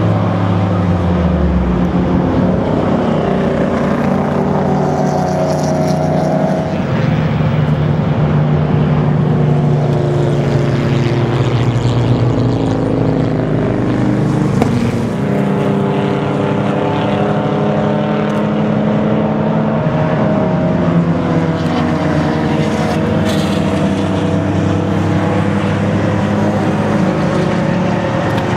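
Several race car engines running at once as the cars lap the circuit, their notes rising and falling with throttle and gear changes; one deep note drops away sharply about a second in.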